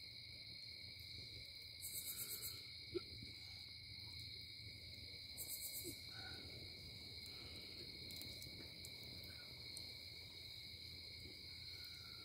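Faint, steady high chirring of night insects, with two short pulsed buzzes, one about two seconds in and one about five and a half seconds in, and a low hum underneath.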